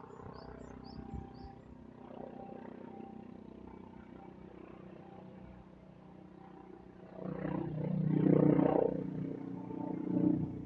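Helicopter passing overhead: a steady low engine-and-rotor drone that swells to a loud rough peak about seven seconds in and stays loud to the end. A few faint small-bird chirps at the start.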